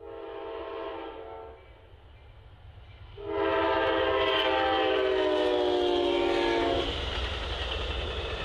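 Amtrak GE P42DC locomotive's air horn sounding its grade-crossing warning: a short blast, a pause, then a long, louder blast that sags slightly in pitch as the train closes in. The horn then gives way to the steady rumble of the train passing.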